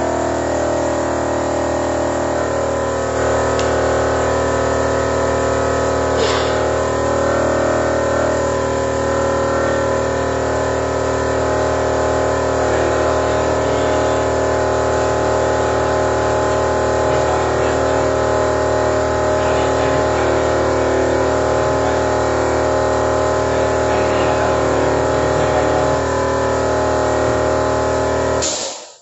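A steady machine running with an even, unchanging drone, stopping abruptly near the end.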